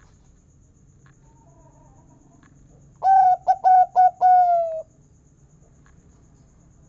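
Zebra dove (perkutut) cooing one song phrase about three seconds in: a quick run of short clipped notes, then one longer, slightly falling note, the 'kung' that perkutut keepers prize.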